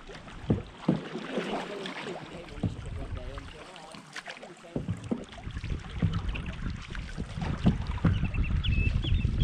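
Open canoe being paddled on choppy water: paddle strokes splash, with scattered light knocks. From about five seconds in, wind buffets the microphone with a low rumble.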